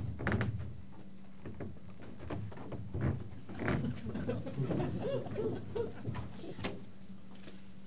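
Scattered light knocks and bumps of wooden stage furniture (folding chairs and a bar counter) being handled, with faint voices murmuring about halfway through, over a steady low hum.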